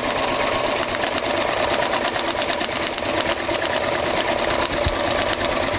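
Electric sewing machine running steadily at speed, its needle stitching rapidly through layers of reflective tarp and foam insulation to sew up the end seam of a cooler bag.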